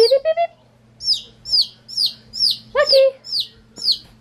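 A baby chick peeping loudly and repeatedly, a quick run of short, high, falling peeps about three a second. This is the insistent peeping of a young chick that has got out of its cage and is alone.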